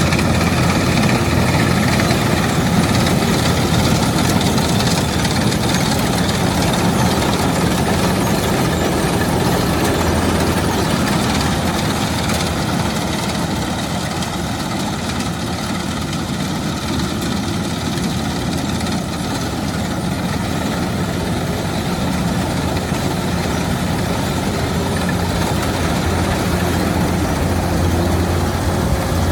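Kubota DC-105X combine harvester running steadily with a low engine drone while working in the field; the sound eases a little midway and then grows again.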